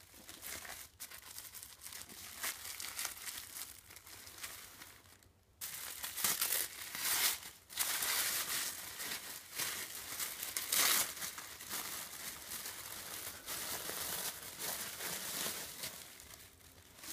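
White plastic wrapping being torn open by hand and tissue paper crinkling as it is pulled back, a continuous crackly rustle with many small crinkles; it gets louder about five and a half seconds in.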